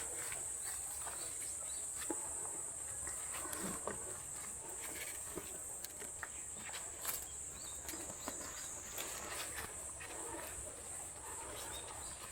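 Steady, high-pitched insect trill, cricket-like, that starts right at the beginning and holds without a break, with faint scattered clicks underneath.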